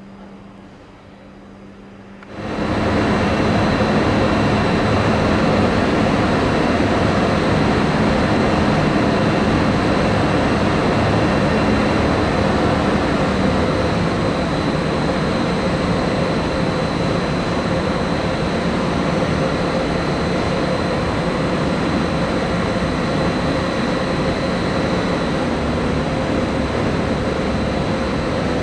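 Siemens ES 64 U2 Taurus electric locomotive standing with its cooling fans and power electronics running: a loud steady rushing hum with a faint high whine. It starts suddenly about two seconds in, after a quieter low hum.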